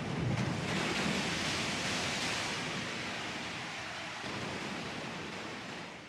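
Sea waves washing ashore: a steady rush of surf that swells about a second in, eases off, and begins fading out near the end.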